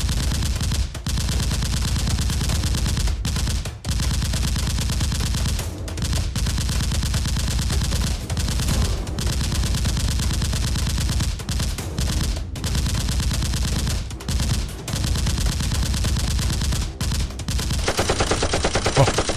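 Rapid automatic gunfire, long bursts of fast shots broken by a few brief pauses, of the kind laid over Nerf battles to sound like a video-game shooter.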